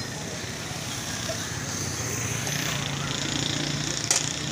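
Street traffic with a motor vehicle's engine hum swelling as it passes, over the steady sizzle of kachoris deep-frying in a large wok of oil. A single sharp click near the end.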